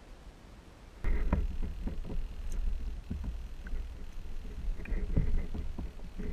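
Muffled low rumble with irregular knocks from a camera underwater, cutting in abruptly about a second in, while a hooked northern pike is played on the line.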